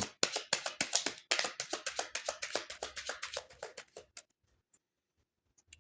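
A tarot deck being shuffled by hand: a rapid run of card clicks and flicks that grows fainter and stops about four seconds in.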